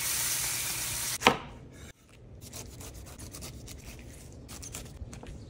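Chef's knife cutting the rind off a whole pineapple on a bamboo cutting board: a run of short rubbing, scraping strokes. Before it, a loud even hiss for about a second that ends in a sharp knock.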